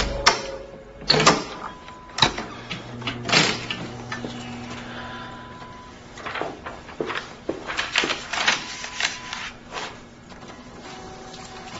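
Film sound effects of handling objects in an office: a door latch clicking and the door opening, then knocks, clicks and paper rustling at a metal safe. A faint steady hum runs underneath.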